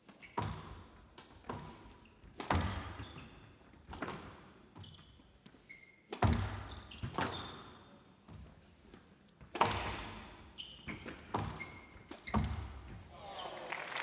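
Squash rally on a glass court: a sharp crack of ball on racket or wall about once a second, each ringing on in the hall, with short high squeaks of shoes on the court floor between hits. Applause starts near the end as the rally finishes.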